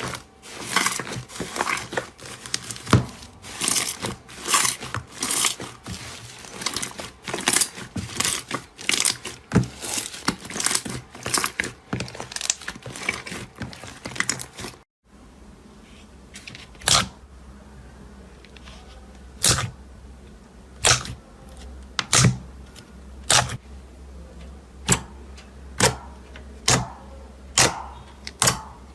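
Slime being handled, crackling and popping: dense crackles for about the first half, then, after a sudden cut, separate sharp pops about once a second that come more often near the end.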